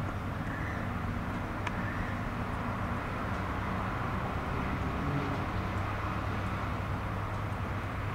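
Steady low drone of a cargo ship's engine as it moves out of the dock, with an even wash of outdoor noise over it.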